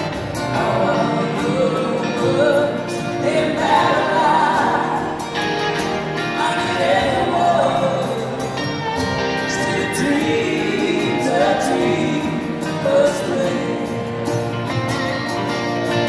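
Live folk band playing acoustic guitars while a woman and a man sing together in harmony.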